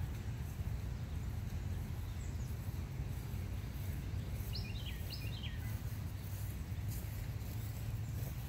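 Outdoor ambience: a steady low rumble, with a bird giving two quick falling chirps about halfway through.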